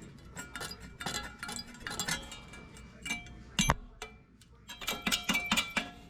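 Irregular metallic clinks and taps, each ringing briefly: steel sheet metal being handled and struck during body repair. The sharpest strike comes a little over halfway, with a quick run of taps after it.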